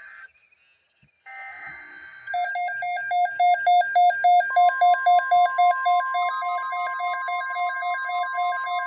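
Emergency Alert System SAME header data bursts, buzzy digital squawks about a second long, followed by an alert receiver's pulsing alarm beep at about four beeps a second. About halfway through, a steady weather-radio alert tone near 1 kHz joins the beeping.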